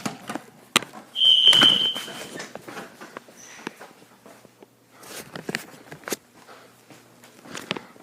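A fire alarm system gives one loud, high-pitched electronic beep lasting about a second, starting about a second in, as a device is set off during testing. Scattered clicks and steps sound around it.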